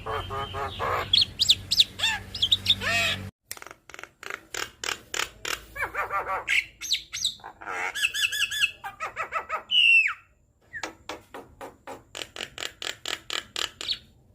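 Javan myna (jalak kebo) singing a loud, varied chattering song: rapid clicks and harsh squawks mixed with warbled whistles, with a long downward-slurred whistle about ten seconds in.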